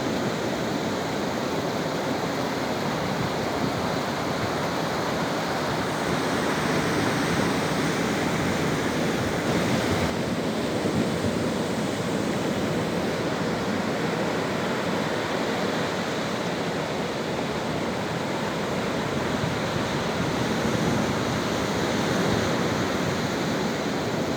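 Sea waves washing onto a beach: a steady rush of surf with mild swells in loudness.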